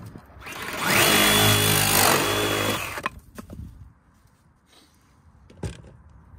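Power saw cutting through PVC pool pipe: the motor runs up, cuts steadily for about two seconds and stops, followed by a few light knocks.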